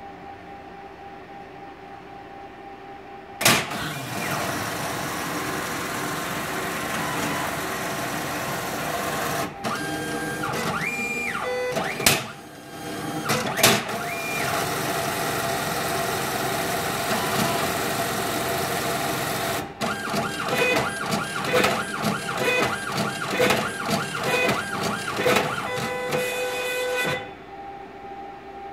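ATM cash dispenser mechanism running a cycle: motors and transport whirring steadily, with sharp clicks and a motor whine that steps up and down in pitch. Near the end comes a fast run of clicks, and the mechanism cuts off suddenly.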